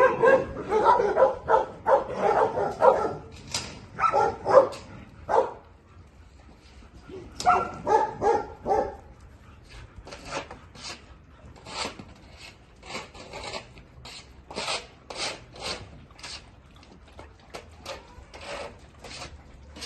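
Dogs barking for the first few seconds and again briefly near the middle. The barking then gives way to a dog panting hard, about two breaths a second.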